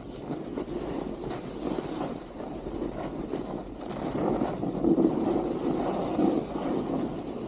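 Edges sliding and scraping over groomed piste snow as the rider descends, a rough, continuous hiss that grows louder and stronger in the second half, mixed with wind buffeting the microphone.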